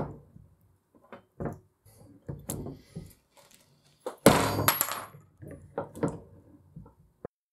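Hand-lever rebar cutter shearing a 10 mm brass rod about four seconds in: a sharp metallic crack with a brief high ring. Lighter metal clinks and knocks come before and after it, with a last click near the end.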